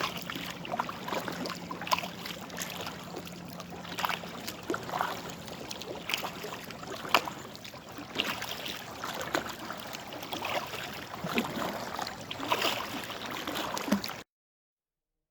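Kayak paddling on a lake: irregular splashes and drips of water as the paddle blades dip and lift, over a steady lapping of water. The sound cuts off suddenly about a second before the end.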